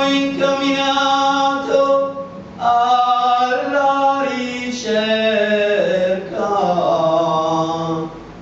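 A man singing a devotional bhajan solo in long, held notes that glide slowly from pitch to pitch, breaking briefly about two and a half seconds in and again about six seconds in.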